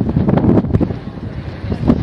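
Wind buffeting the microphone in irregular gusts, a loud low rumble that swells about half a second in and again near the end.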